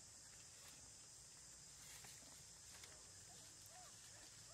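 Near silence: faint outdoor ambience with a steady high hiss, and a couple of faint short chirps near the end.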